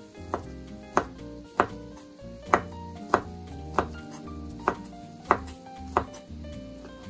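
Kitchen knife slicing fried tofu (aburaage) into thin strips on a wooden cutting board: a sharp knock of the blade on the board with each cut, about nine cuts at an even, unhurried pace.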